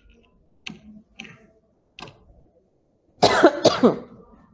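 A woman clearing her throat with two short coughs about three seconds in, after a few faint clicks.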